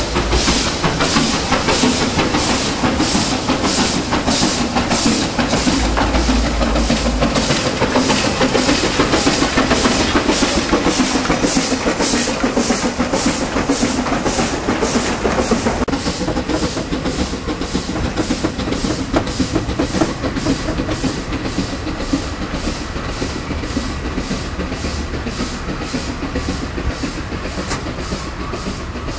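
Chinese C2-class narrow-gauge steam locomotive working a loaded brick train, its exhaust beating in a steady rhythm while four-wheeled wagons rattle past on the rails. The beat grows fainter after about halfway as the train pulls away.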